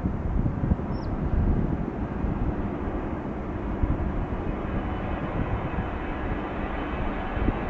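Boeing 727-200's three Pratt & Whitney JT8D turbofans at takeoff power as the jet rolls down the runway and lifts off. A steady low rumble, with a thin whine coming up near the end.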